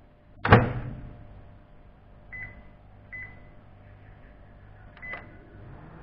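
Panasonic microwave oven door slammed shut, then three short keypad beeps as the cooking time is set and started. Near the end the oven's low hum starts up as it begins heating.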